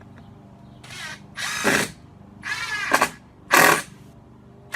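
Impact driver with a Robertson bit driving a 1.5-inch wood screw in four short trigger bursts, the first one light. Each burst is a whining, hammering run that rises and falls in pitch, giving just enough impacts to set the screw.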